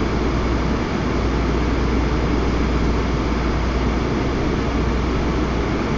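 Steady rushing noise of a flowing river, with a constant low rumble underneath.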